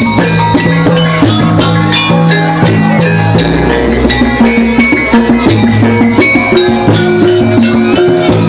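Gamelan music for a jathilan (kuda lumping) horse-trance dance: drums and ringing tuned metal percussion playing a busy, steady repeating pattern over a low bass.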